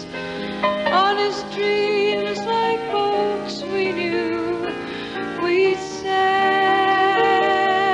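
Music: a woman singing a slow, wavering melody over sustained chords; the voice stops about six seconds in, leaving the held chords.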